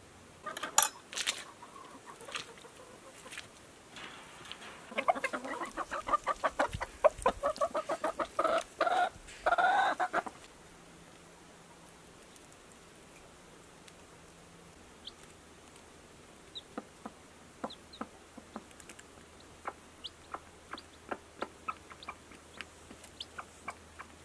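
A sharp knock about a second in, then a broody hen clucking in a rapid run of short calls for about five seconds. After that come many light taps as she pecks seed from a plastic dish on the nest.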